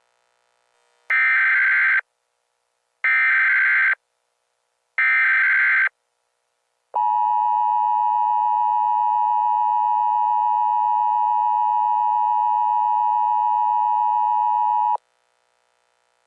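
Emergency Alert System tones: three one-second bursts of SAME header data, a second apart. Then the steady two-tone EAS attention signal holds for about eight seconds and cuts off suddenly.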